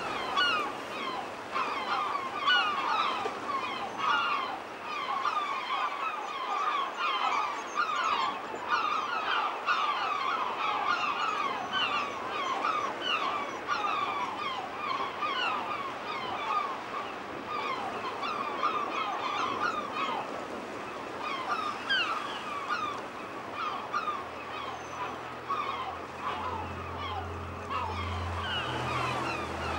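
A seabird colony: many gulls calling over one another in a dense, continuous chorus of short cries. A low rumble joins near the end.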